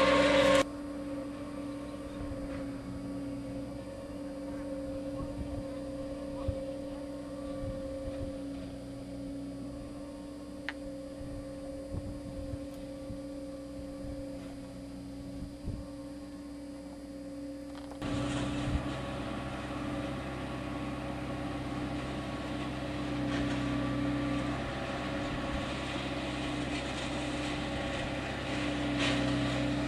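Tractor working a Pellenc TRV60 vine pruning machine: a steady engine and hydraulic hum with a constant pitch. It is quieter through most of the first half and louder from about 18 seconds in, as the machine comes close along the row.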